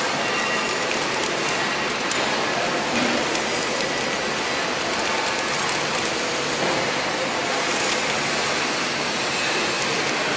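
Steady, even hiss of background noise on the factory floor, with one or two faint clicks.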